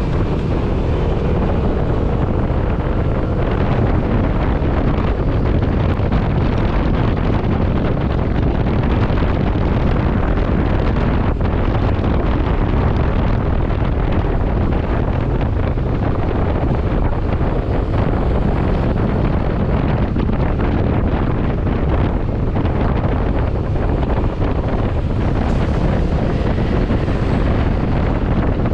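Steady wind rush over an action camera's microphone on a moving motorcycle, with the motorcycle running underneath.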